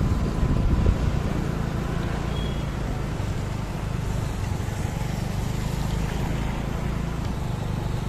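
Motor vehicle engine running while driving, a steady low hum.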